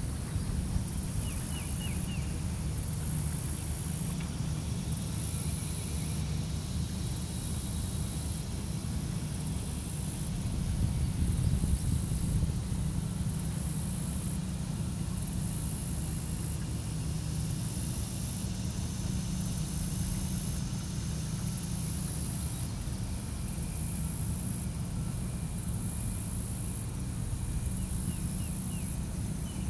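Outdoor swamp ambience: a steady low rumble, with a high-pitched buzz that pulses about every second and a half, and a few short chirps about a second in and again near the end.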